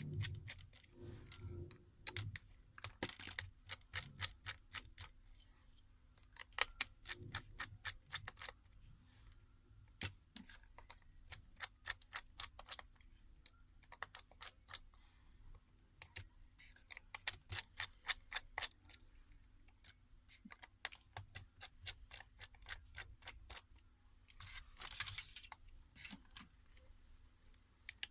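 Small, sharp clicks and ticks in irregular runs from a precision screwdriver and small tools undoing the screws of a smartphone's inner frame, with a denser cluster of clicks about 25 seconds in.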